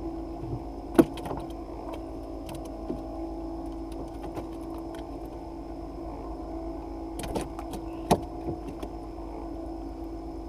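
A steady mechanical hum, with a few sharp clicks and knocks as a fish is unhooked on a wooden boat. The loudest click comes about a second in, with more around seven to eight seconds.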